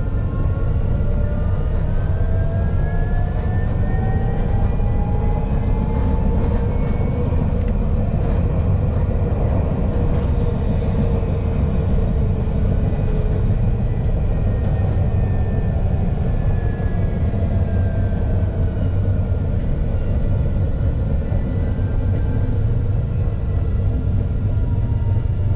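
Alstom Citadis low-floor tram running: a steady low rumble from the wheels and running gear. Over it the traction motors' whine rises in pitch over the first several seconds as the tram speeds up, then falls through the second half as it slows.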